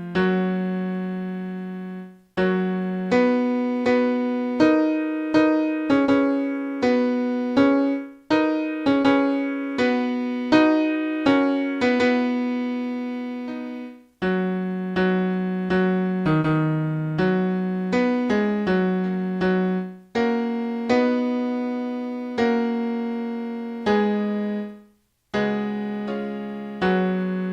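Electric piano playing a single line of a hymn's baritone part, one sustained note at a time, with short breaks between phrases about every six seconds.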